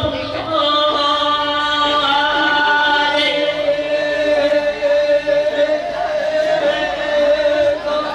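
Voices singing a slow chant in long held notes, each pitch sustained for a second or more before moving to the next.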